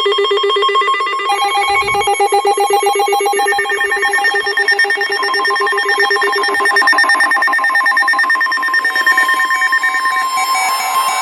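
Emergency alert attention tone: several steady electronic tones sounding together in a fast, ringing trill like a telephone bell. The pitches change a few times as it goes on. It is the alarm that announces the next alert message.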